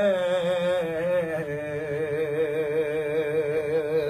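A man singing unaccompanied, drawing out one long wavering note of a Punjabi Sufi devotional song in praise of his pir. The held note breaks off right at the end.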